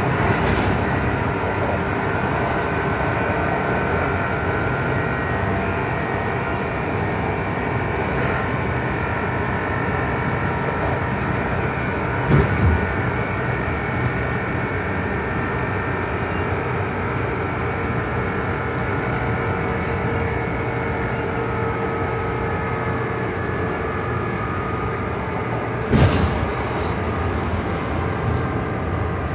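Running sound inside a Kintetsu 2800 series resistor-controlled motor car: its Mitsubishi MB-3110A traction motors and gearing hum steadily at speed, a low-pitched unit whose couplings give off an unusual, odd noise. Two short knocks come through, about twelve seconds in and near the end.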